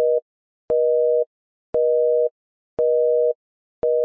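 Telephone busy tone: a steady two-note tone beeping on and off about once a second, each beep starting with a click. It is the sign that the call has been cut off.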